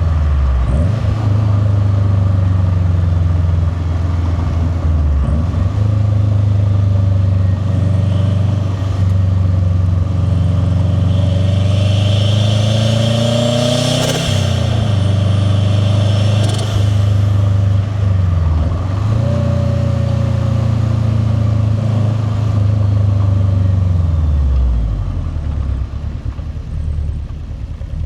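Turbocharged Subaru WRX STi boxer four-cylinder with a catless downpipe and titanium cat-back exhaust, driven hard through the gears: engine speed climbs and drops several times. The longest pull peaks about halfway in with a high turbo whistle over the exhaust, then breaks off sharply at the shift. The engine slows and gets quieter near the end.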